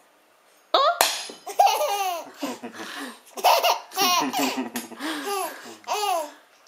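A baby boy a few months old laughing in a run of high-pitched bursts, each sliding down in pitch, breaking out suddenly about three-quarters of a second in and stopping just before the end.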